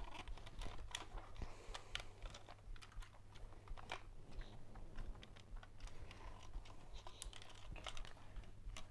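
Irregular light clicks and taps of small objects being handled, over a steady low electrical hum.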